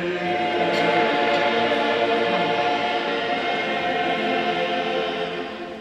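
A group of voices singing a hymn together in harmony as part of the prayer, holding long chords that fade away near the end.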